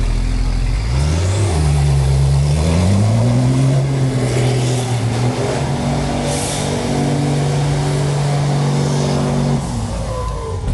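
Iveco Trakker Dakar rally truck's diesel engine revving up while it spins doughnuts, held at high revs for several seconds, then falling off near the end.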